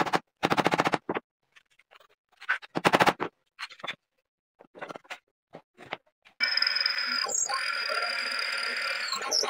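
A hammer taps a pronged metal T-nut into a plywood board, followed by a few seconds of short knocks as the wooden parts are handled. About six seconds in, a drill press starts up abruptly and runs steadily, with a hole saw cutting into a block of wood.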